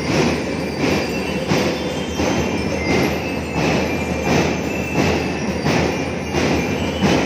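A marching drum-and-lyre band playing: snare and bass drums with strong beats about every two-thirds of a second, and bell lyres ringing short high notes over them.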